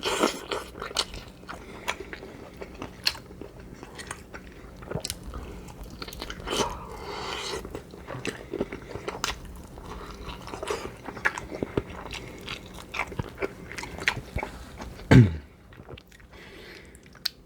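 A person chewing and crunching food close to the microphone: many quick wet clicks and crunches of bites being chewed, with one louder short sound about fifteen seconds in.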